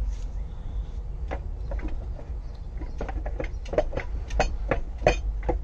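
Manual transmission being worked backward off the clutch on a jack: a series of short metal knocks and clinks, thickest in the second half, over a steady low rumble.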